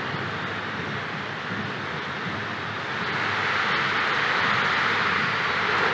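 Football stadium crowd roaring steadily, swelling louder about halfway through as an attack moves toward the goal.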